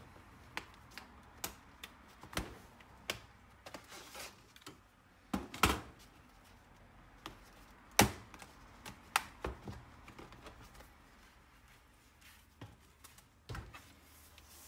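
Scattered clicks, taps and knocks from the plastic case of an Acer Aspire ES1 laptop being handled and taken apart. Two louder knocks come about five and a half and eight seconds in.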